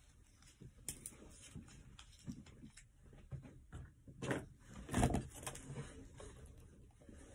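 Handling noises at a workbench: scattered knocks, taps and rustles as objects are moved about, with two louder thuds about four and five seconds in.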